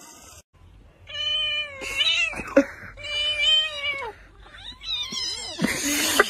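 Domestic cat meowing: about four long, drawn-out meows, each falling in pitch at the end, then a harsher cry near the end.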